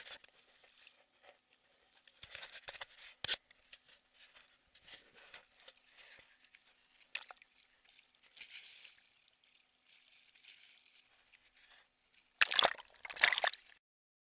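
Water sloshing and trickling against the side of an inflatable boat as a meagre is held in the water and released by hand, with scattered light clicks and splashes. Near the end come two loud bursts of splashing noise.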